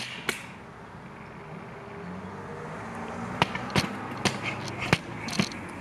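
A series of sharp clicks and taps close to the microphone: one just after the start, then five more in quick succession a few seconds in. They sound like handling noise from the camera being touched or adjusted, over a faint low hum.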